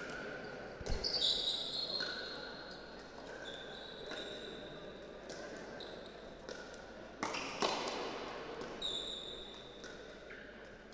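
Pickleball rally: paddles hitting the hard plastic ball with sharp pops at irregular intervals, and court shoes giving several high squeaks on the hall floor between hits.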